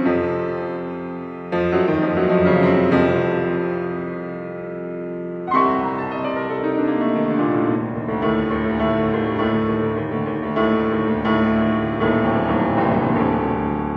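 Yamaha grand piano played solo. Loud chords are struck about a second and a half in and again near six seconds, each left ringing and fading, then a busier passage of many notes follows.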